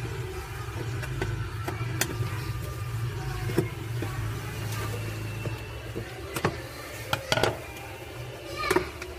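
A metal screwdriver and rod clicking, tapping and scraping against the washing machine's tub floor and spinner plate, in scattered sharp knocks that are loudest in the second half. A steady low hum runs underneath and stops a little past halfway.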